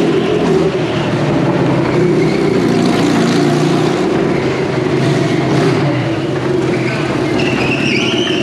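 Engine of a small go-kart running steadily as it drives round the wooden wall of a Wall of Death.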